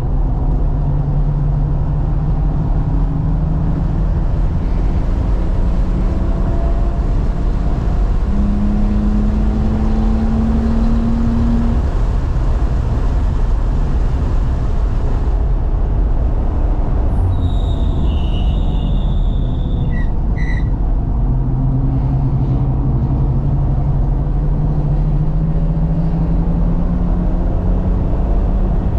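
BMW F80 M3 Competition's twin-turbo straight-six at speed on a race track, heard inside the cabin. The engine note keeps rising and falling over heavy road and wind noise.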